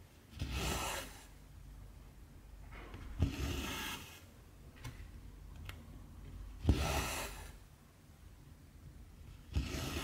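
Cotton embroidery thread pulled through 14-count cross-stitch fabric: four rasping pulls about three seconds apart, each opening with a sharp click.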